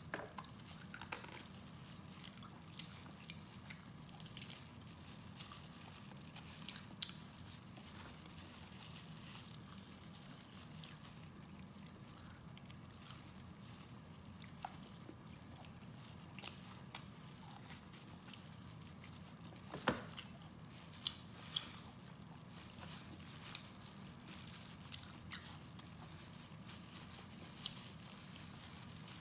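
Close-miked wet chewing and lip smacks from eating braised pork trotter, with sticky squishes as the meat is pulled apart by gloved hands. Scattered small clicks run over a low steady hum, with one sharper click about two-thirds of the way through.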